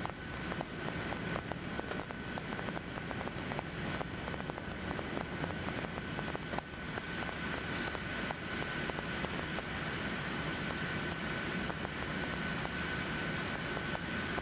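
Steady jet engine and airflow noise inside the cabin of an Airbus A380 climbing out after takeoff, with a steady high whistle-like tone over it. Frequent small crackles from the camera's microphone overloading on the loud noise.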